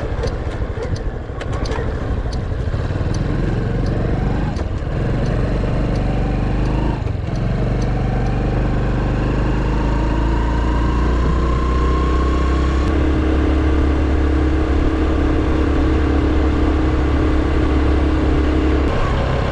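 Honda Super Cub 110's single-cylinder four-stroke engine running under way: the pitch climbs as it accelerates, dips briefly about seven seconds in, climbs again, then holds steady while cruising. A few light ticks in the first few seconds.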